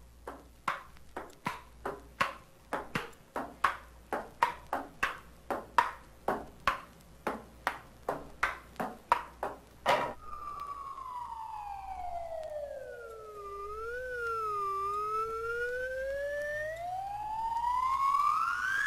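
A ping-pong game played back from a 1963 Audio Fidelity stereo demonstration record: the ball clicks sharply back and forth, about two or three hits a second, for about ten seconds. Then a whistling tone glides steadily down in pitch, wobbles, and climbs back up until the end.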